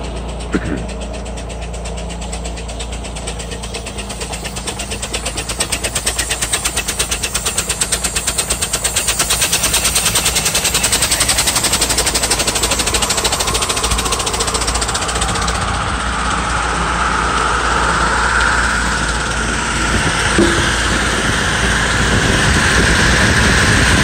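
Ford 9N tractor engine converted to run on steam, chuffing with rapid even beats that quicken and get louder over the first ten seconds as the steam is turned up, with steam hissing. The belt-driven cut-off saw spins along with it.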